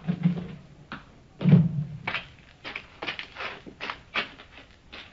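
Sound effect of a door opening and shutting with two low thuds, the second louder, about a second and a half in. It is followed by a run of short footsteps, about three a second, walking away.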